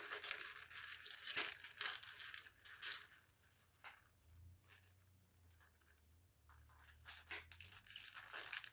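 Crinkling and rustling of a snack bag and its printed paper wrapper being handled and folded together, in bursts during the first three seconds and again near the end, with quieter handling between.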